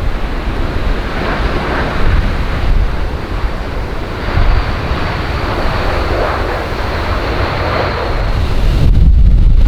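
Strong gusty wind buffeting the microphone, a deep rumble with rushing swells that rise and fall every second or two.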